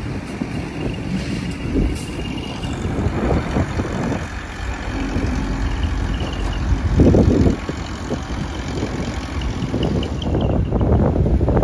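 Heavy diesel vehicles driving past on a road: a large box truck first, then a diesel bus whose engine noise is loudest about seven seconds in as it passes close by.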